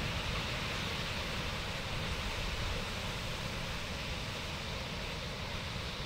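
Ocean surf washing onto a beach as a steady, even rush of noise, with a low rumble of wind on the microphone.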